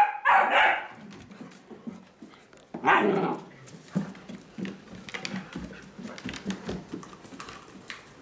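Two dogs, a puppy and a grown dog, at play: a loud play bark just after the start and another about three seconds in, then quieter low scuffling with light clicks on the wooden floor.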